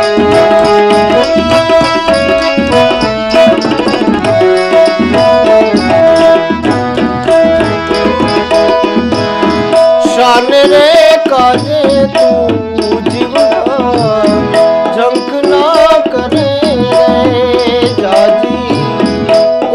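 Harmonium playing a melody over a tabla rhythm, then a man's voice joins about halfway through, singing a Gujarati bhajan.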